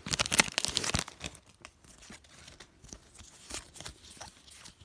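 Foil wrapper of a Pokémon trading-card booster pack crinkling loudly as it is torn open and the cards are pulled out, dying away about a second in. After that come faint rustles and ticks as the stack of cards is handled.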